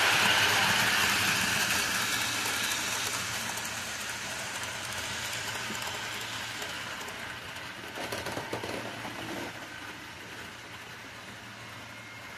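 HO scale model train rolling past on curved track: a steady rattling hiss of its wheels on the rails that fades as the train moves away. There is a brief louder clatter about eight seconds in.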